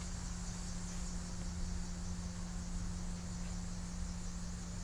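Steady background hum with a low rumble and an even high hiss, with no distinct events: room tone.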